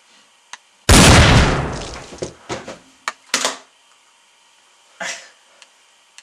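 A single loud pistol shot about a second in, dying away over about a second, followed by a few short knocks over the next couple of seconds.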